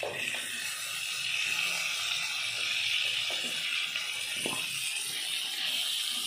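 Wooden spatula scraping fried pointed gourd and potato pieces around an aluminium kadai, over a steady hiss of frying in the hot pan. A few separate scrapes stand out, the clearest about four and a half seconds in.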